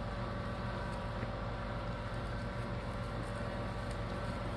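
Steady mechanical hum at a constant pitch, unchanging throughout.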